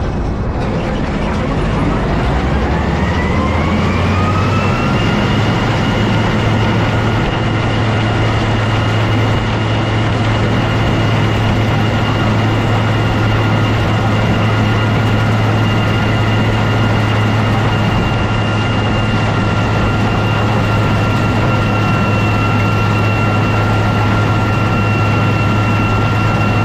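Case IH 1640 combine running, a whine rising in pitch over the first five seconds or so as it speeds up, then holding steady over a strong low drone.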